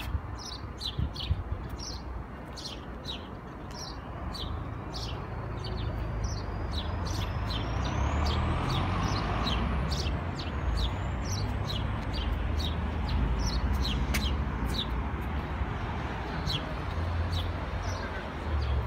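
Small birds chirping in many short, high chirps, with a low rumble underneath that swells in the middle.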